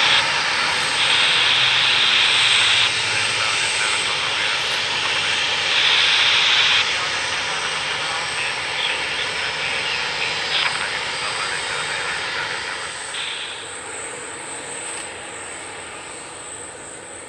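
Jet noise from a Boeing 737-300's CFM56-3 turbofans: a steady hiss with a thin high whine, fading steadily as the aircraft moves away. Brief louder high hisses come about a second in and again about six seconds in.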